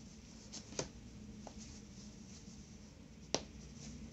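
Faint handling sounds of a metal crochet hook working plush yarn, with a few light clicks. The sharpest click comes near the end.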